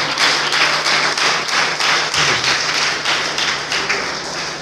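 A congregation clapping hands together in a steady rhythm, growing softer near the end.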